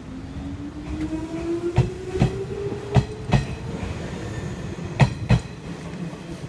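Hanshin Railway 7861-series 'Akadō' red-bodied electric train pulling away from the station. Its traction motors whine, rising in pitch as it accelerates over the first four seconds. Three pairs of clacks from wheels crossing rail joints come through, the last about five seconds in.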